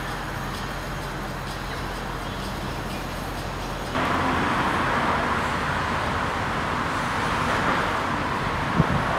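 Steady outdoor street ambience with a rush of distant road traffic. It becomes louder at a cut about four seconds in, and there is a brief thump near the end.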